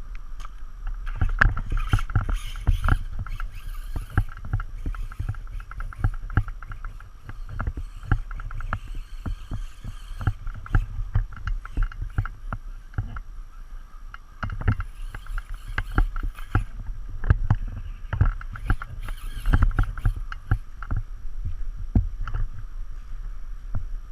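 Traxxas Slash 2WD RC truck running on a 1900kv brushless motor. A steady motor whine comes with a low rumble and frequent sharp clicks and knocks throughout.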